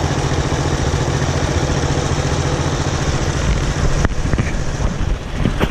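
Engine idling steadily, with a sharp click about four seconds in.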